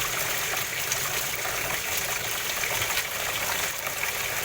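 Water running steadily from a tap into the washtub of a semi-automatic washing machine, filling it over a load of dishes.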